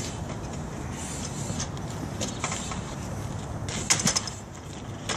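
Aluminium extension ladder clanking and rattling as it is raised upright and set against a wall, with a quick cluster of metallic clicks about four seconds in and a single click near the end, over a steady low rumble.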